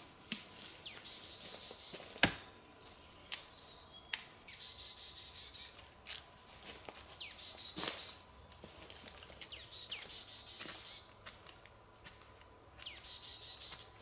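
Birds calling in woodland: several high calls that sweep sharply downward, and bouts of a fast high trill. A few sharp clicks or snaps stand out, the loudest about two seconds in.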